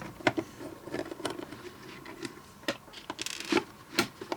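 Light, scattered clicks and knocks of a hard plastic lamp body being handled, with a short rustle, as its battery compartment is checked.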